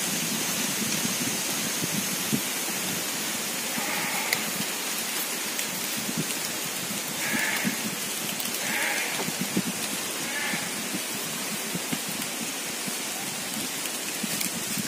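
Steady outdoor hiss with light crackling, broken by four short calls spread through the middle.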